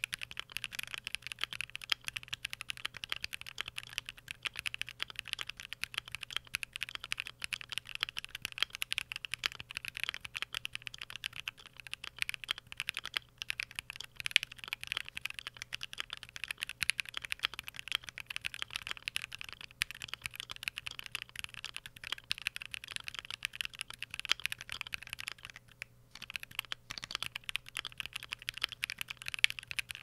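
Steady, rapid typing on an OwLab Voice65 custom mechanical keyboard with a polycarbonate plate, foam-dampened case, lubed and filmed 67g C³ Tangerine V2 linear switches and PBT keycaps. There is a short pause near the end.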